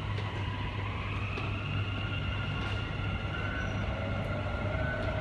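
Dubai Metro train's electric drive whining, the pitch rising as the train gathers speed, with a second lower whine joining near the end, over a steady low hum.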